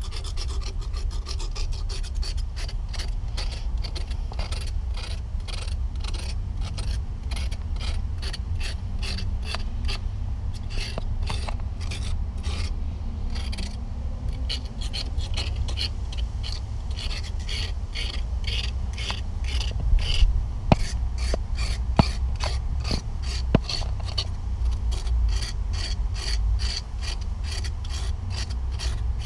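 A hand tool scraping rust off a rusted cast iron water supply pipe in quick, rasping back-and-forth strokes, about three a second, cleaning the pipe down for a glue bond. A few sharp clicks come through about two-thirds of the way in.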